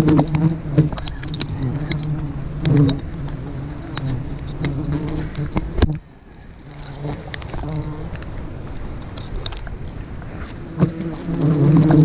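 A swarm of wild honeybees buzzing, a steady hum with many scattered clicks and rustles of handling. The buzzing cuts out suddenly about halfway through and then builds back.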